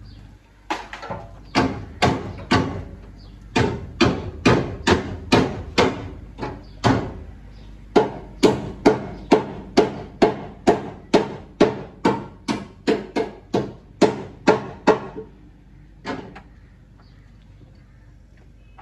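Repeated ringing metal-on-metal strikes, about two a second in a long run of some thirty blows with a couple of short pauses, stopping about fifteen seconds in, then one last strike a second later.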